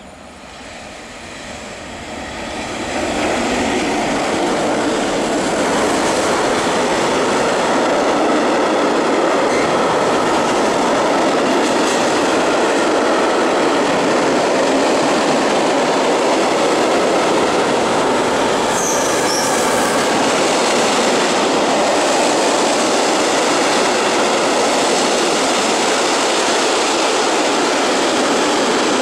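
Freight train of loaded tank wagons, hauled by an ET40 electric locomotive, running past at close range while braking. The noise builds over the first few seconds as the locomotive approaches and passes. A steady loud din of steel wheels on rail and wagon brakes follows as the tank wagons roll by.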